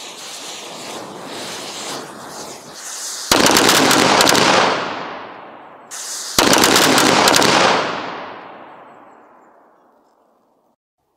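Miniature model Katyusha rocket launcher firing its salvo of small rockets: a steady hissing rush, then two very loud bursts of rapid crackling about three seconds apart, each fading away.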